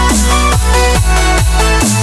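Loud electronic dance music with a thumping beat about twice a second, each hit sliding down in pitch, over deep bass notes and held synth chords.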